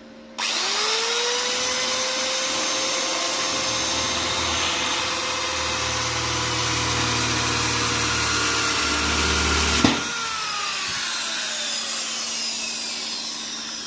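Small electric power-tool motor spinning up with a rising whine and running steadily. A low rumble joins it for several seconds in the middle. About ten seconds in it is switched off with a click and winds down with a falling whine.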